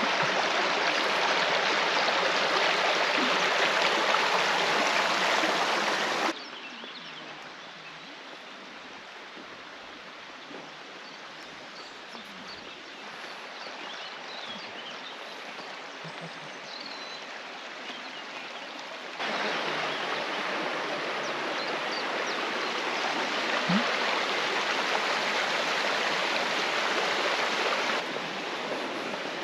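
Stream water running, a steady rushing hiss. It drops suddenly to a fainter flow about six seconds in and jumps back up to a loud rush a little after nineteen seconds.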